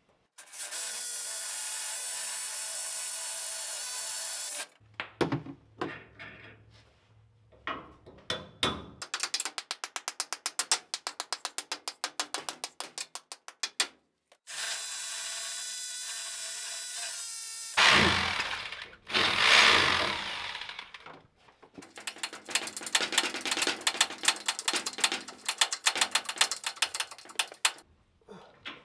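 Power drill boring holes into a concrete floor for anchor bolts, in two spells of steady drilling. Between them come knocks as the anchors are set and long runs of rapid, even clicking, like a ratchet wrench tightening the anchor nuts.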